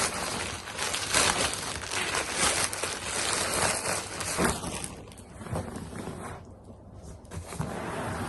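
Packaging rustling and crinkling as an unhooking mat in its bag is handled, busy for about the first four and a half seconds and then quieter.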